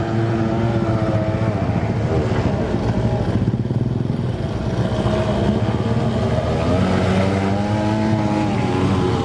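Small grass-cutter engine powering a radio-controlled boat, running steadily, its pitch rising and falling a little as the throttle changes.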